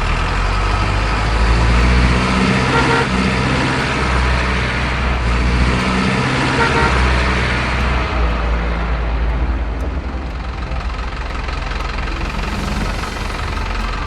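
Heavy diesel truck engine sound running steadily with a deep rumble.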